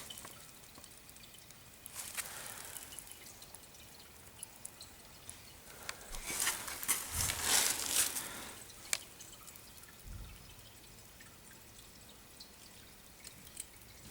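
Water dripping and trickling in freshly fitted heating pipework as the system is filled, with scattered clicks. There are short louder rushes about two seconds in and again around six to eight seconds in.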